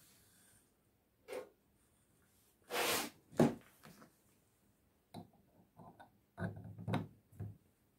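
Knocks and light clicks from small brass model steam engine parts being handled on a workbench. A couple of sharper knocks come about three seconds in, then a cluster of lighter taps near the end as the cylinder block is set onto the top of the column frame.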